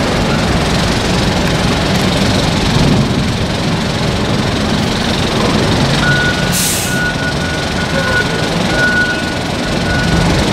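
Heavy diesel engines of a container reach stacker and a truck running steadily. About six seconds in, a reversing alarm starts beeping at one steady pitch, and a short hiss of air sounds just after it starts.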